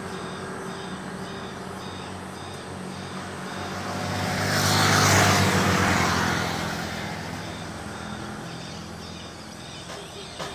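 Road traffic: a motor vehicle passes by, swelling to its loudest about five seconds in and then fading, over a steady low engine hum. A faint high chirp repeats about twice a second.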